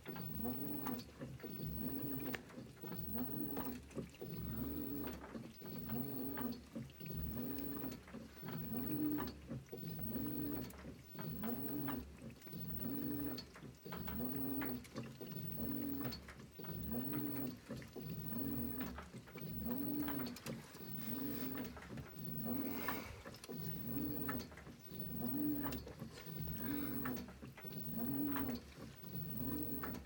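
2012 LG WaveForce top-load washer's motor agitating an overloaded wash, whirring up and falling away in an even rhythm about once every second and a half as the wash motion swings back and forth.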